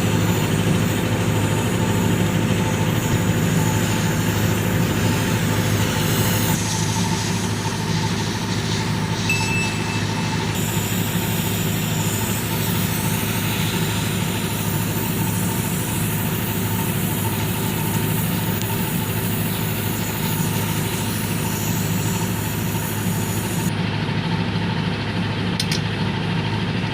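Tata Ace Gold mini truck's engine idling steadily, heard with its exhaust silencer.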